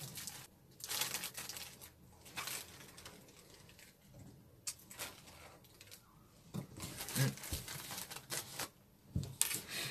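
Rustling and soft tapping from hands handling a phone close to its microphone, in irregular bursts with short quiet gaps.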